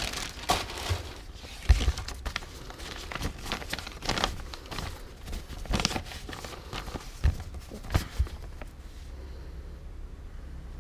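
Handling noise: irregular clicks, knocks and rustling as tools and small parts are picked up and set down, with a few sharper knocks. It quietens near the end.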